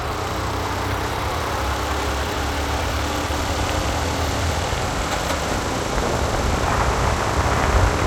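Steady vehicle engine and road noise with a deep rumble, starting abruptly and growing slightly louder toward the end.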